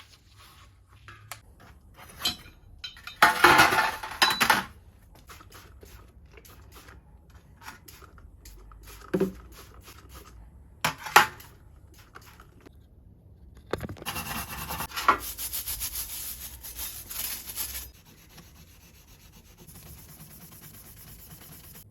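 Rubbing and scraping on metal bicycle parts, in several separate bouts, with scattered clicks and knocks in between. The longest bout of rubbing comes near the end.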